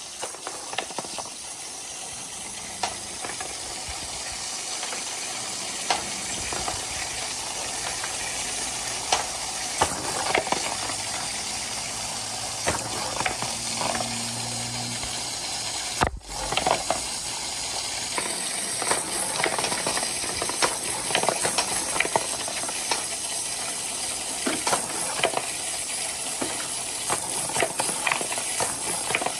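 Water rushing steadily down rain gutters, with colourful wooden balls knocking and clattering as they tumble along the wet gutters. The sound drops out for an instant about halfway through.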